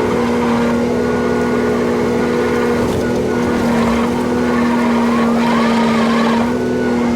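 Caterpillar D5 bulldozer's diesel engine running steadily under load while dragging a long pine log on a chain. A faint wavering squeak comes about five and a half seconds in.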